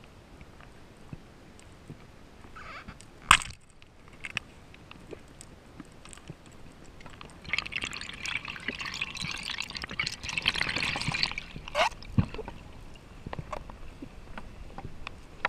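Water noise heard through an underwater camera: scattered clicks and knocks, one sharp knock about three seconds in, and a few seconds of bubbling, rushing water from about eight to eleven seconds in.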